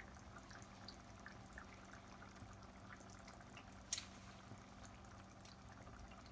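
Faint scattered pops and ticks of fish curry simmering in a pan on a gas stove, over a low steady hum, with one sharp click about four seconds in.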